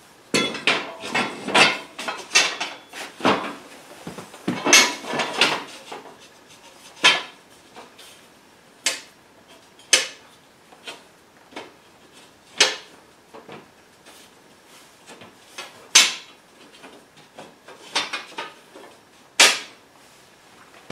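Laser-cut steel plates clanking and scraping against each other as their tabs are worked into the slots of a steel welding table top. Irregular sharp knocks come in a busy cluster over the first several seconds, then single clanks every second or two.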